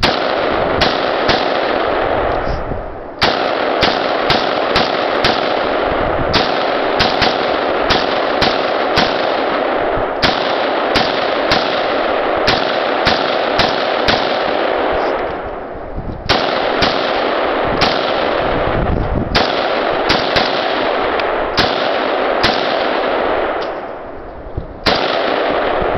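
A Romanian underfolder AK-47 in 7.62×39 firing a long string of rapid single shots, mostly about two a second. The string is broken by a few short pauses.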